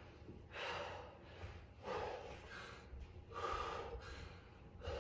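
A man breathing hard under exertion: four forceful breaths about every second and a half.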